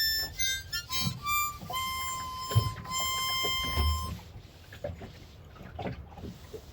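A short phrase of high harmonica notes: a few quick notes, then one long held note that stops about four seconds in. Faint knocks and creaks follow.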